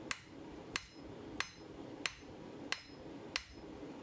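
Hand hammer striking a red-hot steel bar on the anvil, six even blows about two thirds of a second apart, each with a short bright ring, over a steady low background noise. The smith is drawing out a shallow square taper to fit the anvil's hardie hole.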